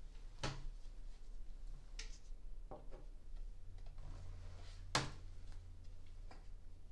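Tarot cards and deck handled on a wooden tabletop: a few soft taps and clicks as cards are set down and straightened, the loudest about five seconds in, over a low steady hum.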